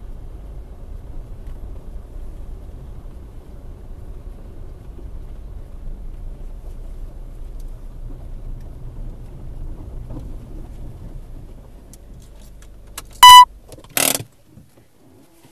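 Low rumble of a car on the road, picked up by a dash cam inside the cabin, which dies away about twelve seconds in. Then comes one short, loud electronic beep, and just after it a brief loud burst of noise.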